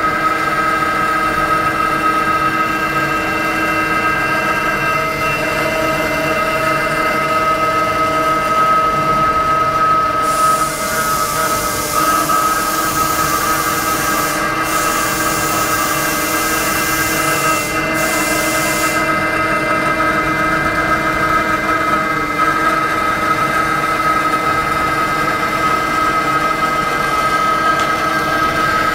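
Haas VF-2 CNC vertical machining centre milling a copper EDM electrode: a steady spindle whine with cutting noise. From about ten seconds in until about nineteen seconds a loud high hiss joins, breaking off briefly twice.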